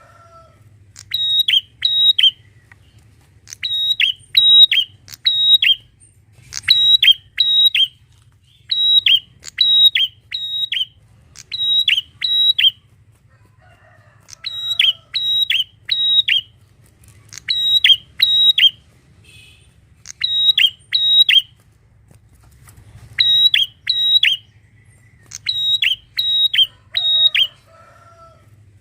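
Prinia (prenjak) calling: loud, sharp chirps in quick bursts of two to four notes, each burst repeated every second or two.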